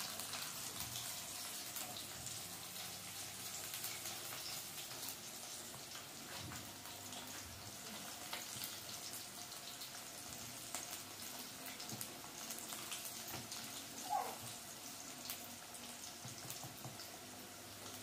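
Hot oil sizzling and crackling steadily as potato fries deep-fry in a wok, with a brief squeak about fourteen seconds in.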